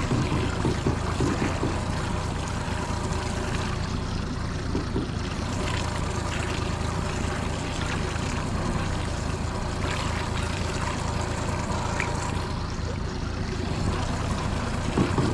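A small boat's outboard motor running steadily at trolling speed, a constant low hum, with water trickling and splashing along the hull.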